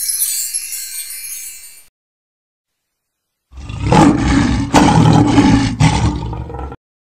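A twinkling chime sound effect that fades out over about two seconds. After a short silence, a loud monster roar lasts about three seconds.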